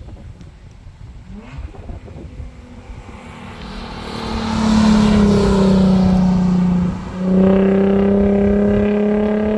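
Nissan 350Z's 3.5-litre V6 through an aftermarket Tomei dual exhaust, accelerating under load. The note builds from about three seconds in and becomes loud. It breaks off briefly about seven seconds in, then pulls on steadily.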